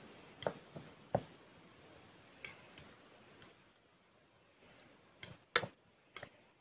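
Metal fork mashing boiled squash in a ceramic bowl: irregular light clicks as the fork strikes the bowl, with a pause of over a second before the last few.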